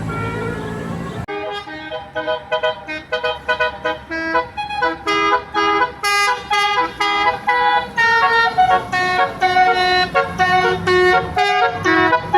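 Telolet basuri multi-tone bus horn playing a quick tune of short pitched horn notes, a few a second, with the pitch jumping from note to note. A low rumble comes first and cuts off about a second in.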